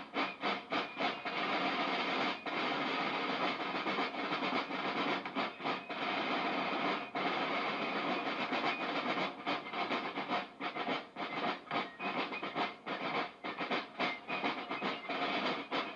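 Several rope-tension field drums of a fife and drum corps played together, a dense rattling beat broken by many short gaps.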